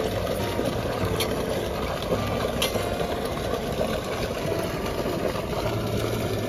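Water pump running steadily, a constant mechanical drone with water rushing out of its outlet pipe.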